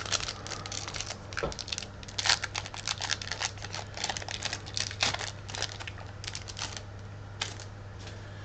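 Foil wrapper of a Pokémon TCG booster pack being torn open and crinkled: a run of irregular crackles that stops about seven and a half seconds in. A steady low hum sits underneath.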